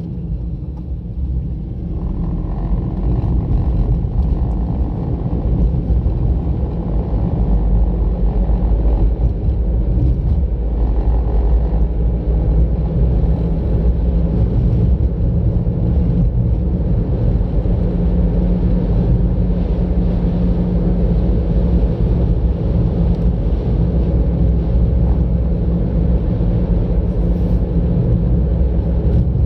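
A car being driven, heard from inside it: a steady low rumble of road and engine noise that grows louder over the first several seconds as it picks up speed.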